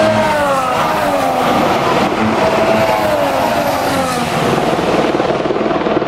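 Formula 1 cars' 1.6-litre turbocharged V6 engines at speed, several cars going by one after another, each engine note falling in pitch as it passes; a steadier engine note carries on after about four seconds.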